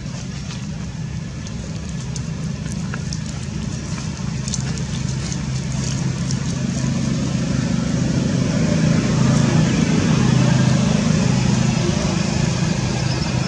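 A steady low motor hum, like a vehicle engine running nearby, growing louder about halfway through, with a few faint ticks.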